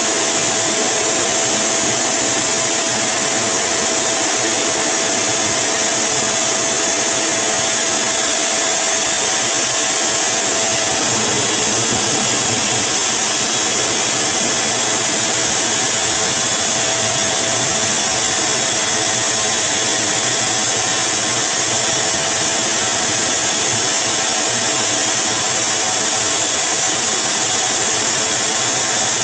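Stand-mounted pet grooming dryer blowing steadily: an even, loud rush of air with a faint steady whine.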